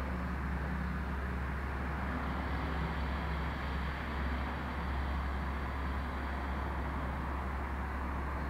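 Slow Ujjayi yoga breathing, a soft, steady throat hiss through the nose, over a steady low hum.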